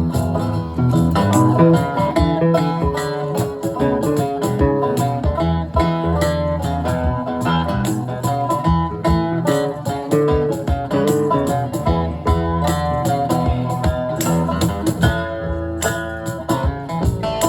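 Live band playing an instrumental passage led by guitar, with a dense run of plucked notes and no singing.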